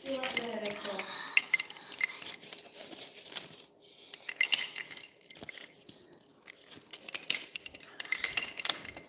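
Scattered light clicks and clinks of small hard plastic toys being handled and knocked together on a table.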